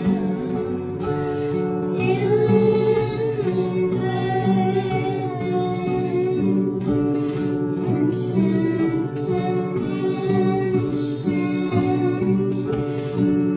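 Music: a song with a female voice singing over plucked guitar.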